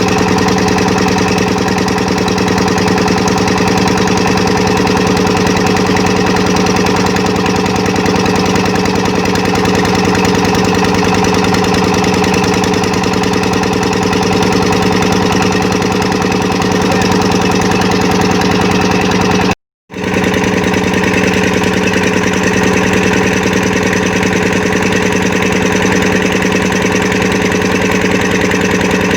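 An engine running steadily at a constant speed, with no change in pitch. The sound cuts out completely for about half a second around two-thirds of the way through, then resumes unchanged.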